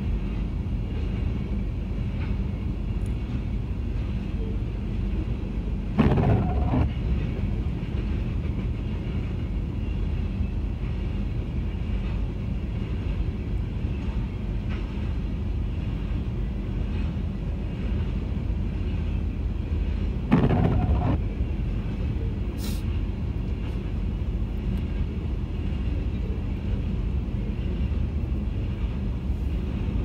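Covered grain hopper cars rolling past on the rails: a steady low rumble of wheels on track, with two brief louder surges, about six seconds in and again near twenty seconds.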